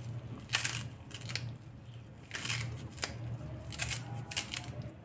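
Kitchen knife cutting through a bunch of fresh coriander held in the hand: about five or six short, crisp cutting strokes, roughly a second apart. A steady low hum runs underneath.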